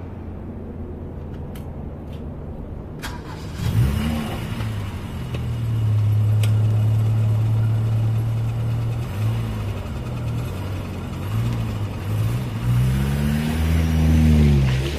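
Car engine starting about four seconds in and running steadily, then revving up and down several times near the end.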